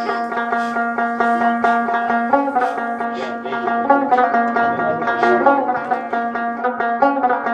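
Background music: fast, picked banjo in a bluegrass style.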